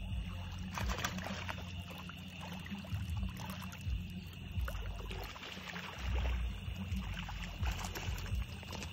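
Lake water lapping on a rocky shore, with wind rumbling on the phone's microphone and a few scattered clicks and knocks.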